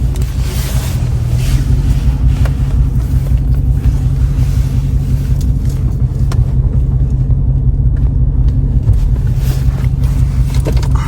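6.4-litre 392 HEMI V8 of a Dodge Charger Scat Pack with a mid-muffler delete, running steadily with a deep, even exhaust rumble.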